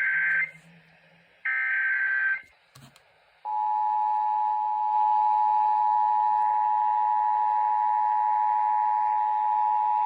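Emergency Alert System tones heard over AM radio: two short bursts of the SAME header's digital data screech end about two and a half seconds in. About a second later the EAS attention signal starts, a steady two-pitched tone that holds to the end.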